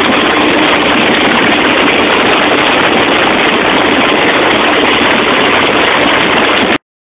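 Checkmate speedboat's outboard motor running steadily at speed, mixed with the rush of its churning wake, loud and even; it cuts off suddenly near the end.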